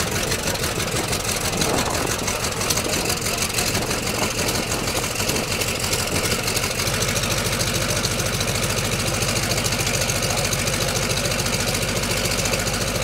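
Cessna 195's radial engine idling, running with an even pulsing beat that steadies and grows fuller about seven seconds in.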